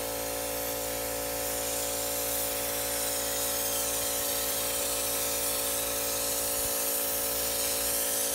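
Compressed-air spray gun spraying Raptor truck bed liner in a steady, unbroken hiss, over a steady hum of several tones.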